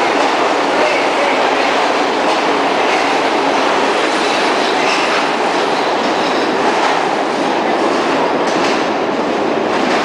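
Pullman-Standard R46 subway train running out along the platform and into the tunnel: a loud, steady rumble of wheels on rail, with a few sharp clacks near the end.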